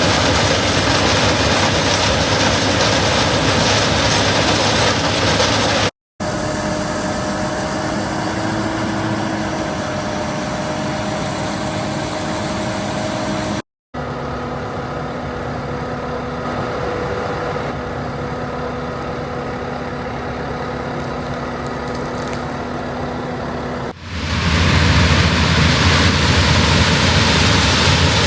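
Corn-harvest machinery engines running steadily, heard in several cut-together stretches: two brief dropouts about 6 and 14 seconds in, and a louder, deeper engine sound from about 24 seconds in.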